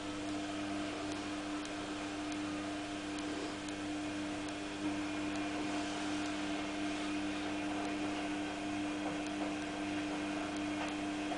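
A steady machine hum, one constant tone with a lower drone under it, unchanging throughout.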